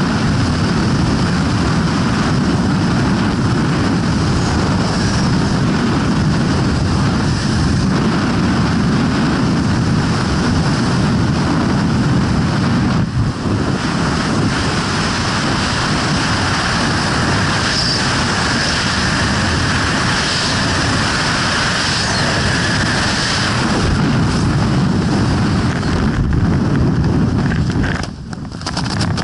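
Freefall wind rushing loud and steady over a skydiver's helmet-mounted camera microphone. Near the end it drops off sharply as the parachute opens.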